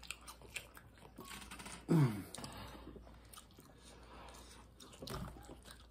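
Close-up chewing and crunching of food, with small mouth clicks and smacks. A short low vocal sound is heard about two seconds in.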